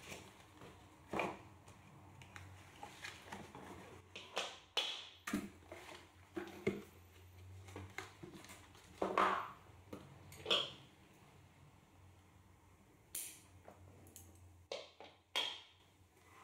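Hands unpacking cloth slippers from a cardboard box: scattered short rustles, scrapes and light knocks of fabric and cardboard, one every second or so, with scissors handled near the start.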